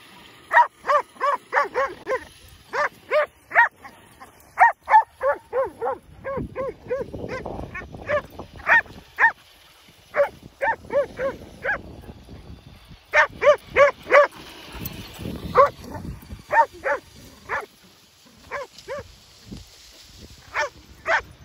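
A Labrador–Staffordshire terrier cross dog barking excitedly in quick volleys of short, high-pitched barks, several a second with brief pauses between volleys, as it chases a radio-controlled car in play.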